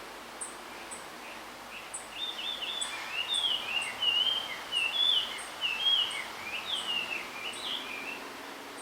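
A male blue rock thrush sings a varied, warbling phrase of quick whistled notes that slide up and down. It starts about two seconds in and lasts about six seconds. This is a male's song to attract a mate.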